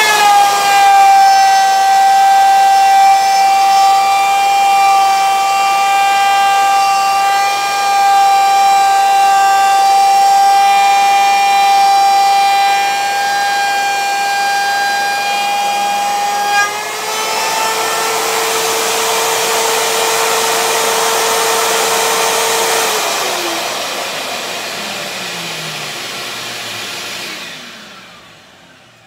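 Router in a benchtop router table running with a steady high whine while a pine board is fed past the bit. About two-thirds of the way through the pitch drops and a hiss comes up; near the end the router is switched off and its whine falls away as it spins down.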